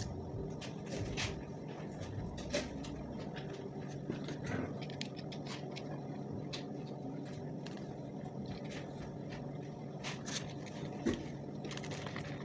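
Scattered light clicks and taps of a screwdriver and small screws being handled, over a steady low background hum.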